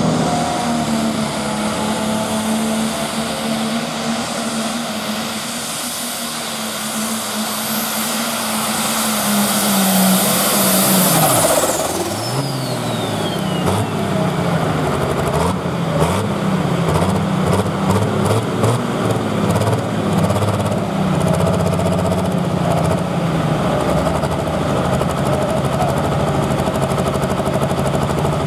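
Pulling tractor's engine running flat out under load on a sled pull, with a high whine that climbs and holds for the first ten seconds or so. About eleven seconds in the whine falls away and the revs swing up and down several times with sharp pops, then the engine settles to a steady run as the pull ends.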